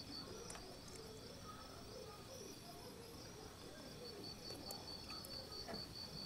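Faint background of a bird cooing softly, over a steady, pulsing high-pitched chirring like insects.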